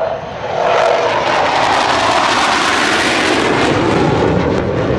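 Loud jet noise from an AMX attack jet's Rolls-Royce Spey turbofan on a low pass. It swells about a second in, and a whine in it falls in pitch as the jet goes by.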